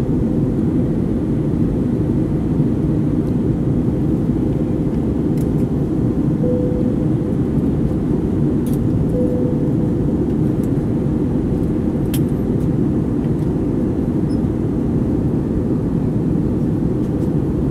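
Airbus A321neo passenger cabin in flight: a steady, low engine and airflow drone.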